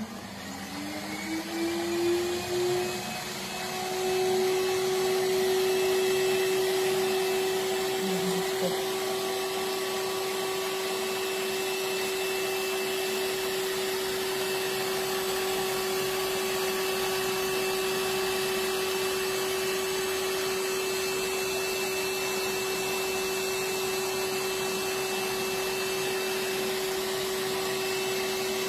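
Aerolase Nd:YAG laser console running during a treatment: a steady machine whine over a hiss, rising in pitch and loudness over the first few seconds as it comes up to speed, then holding level.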